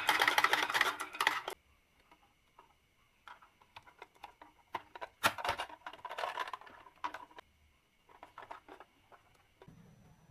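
Marbles rolling and clacking along a wooden marble run, heard as bursts of rapid clicks and rattles with short pauses between them.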